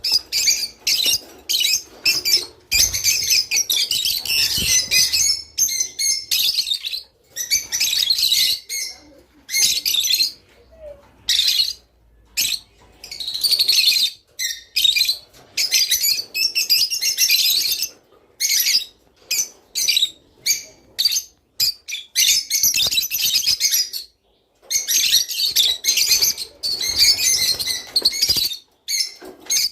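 Several lovebirds chirping and twittering rapidly in busy bursts of a second or two, with short pauses between bursts. This is breeding-season song played to encourage pairs to mate.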